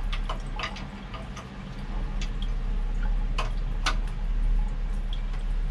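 Scattered sharp metallic clicks and knocks of a spanner working on a basin faucet's fittings, with two louder ones a little past the middle, over a steady low hum.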